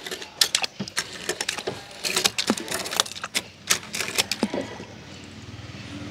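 Die-cast toy cars clicking and clacking against each other and the hard pool edge as they are handled, a quick irregular run of sharp clicks that stops about four and a half seconds in.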